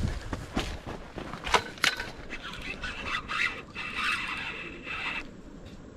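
Sharp knocks and scrapes of handling gear on the bank, then a baitcasting reel whirring for about three seconds before it stops suddenly, as a hooked musky is brought in.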